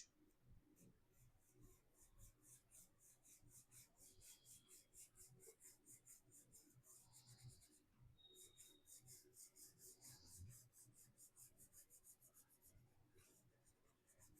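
Faint scratching of a soft pastel stick on paper in quick back-and-forth strokes, about four to five a second, as a branch is drawn, with a short pause a little past halfway.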